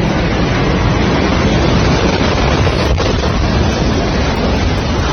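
Loud, steady rushing noise of wind and water, with wind buffeting the microphone.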